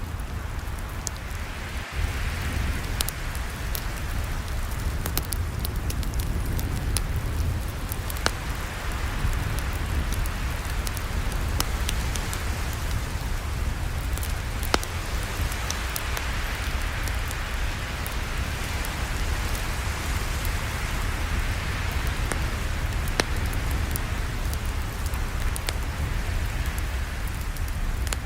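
Campfire burning: a steady rushing noise with a low rumble, broken by frequent sharp crackles and pops from the burning wood.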